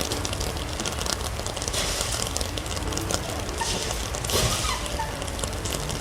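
Steady rain falling, an even hiss dotted with many small drop ticks. A few faint short rising calls come about four seconds in.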